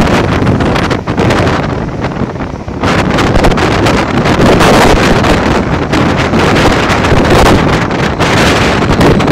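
Heavy wind buffeting the microphone at the open door of a fast-moving Mumbai suburban electric local train, over the train's running noise on the track. The buffeting eases and dulls for a moment about two seconds in, then returns at full strength.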